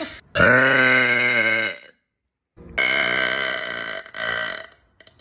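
Two long, loud, deep burps, each held on a steady pitch: the first lasts about a second and a half, and the second about two seconds, with a brief catch near its end.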